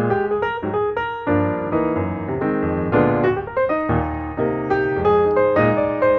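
Piano music playing a steady run of struck notes and chords, several a second, each ringing and fading.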